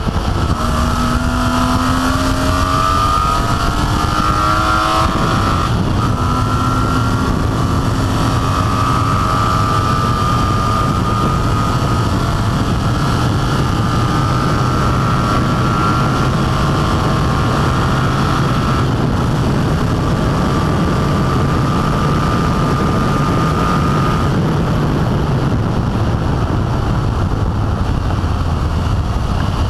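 BMW E30 race car with an E36 325 inline-six driveline at full throttle: the engine climbs through several quick upshifts in the first five seconds, then pulls long and slowly rising in a high gear, with short breaks around twenty and twenty-five seconds in. Heavy wind and tyre noise run under it throughout.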